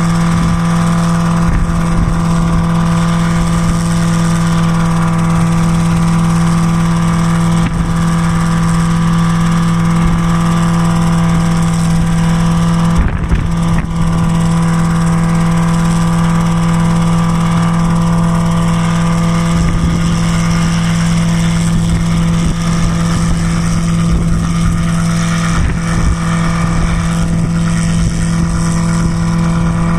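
Homebuilt single-seat helicopter's engine and rotor running steadily while it hovers just above the ground, a loud hum holding one pitch.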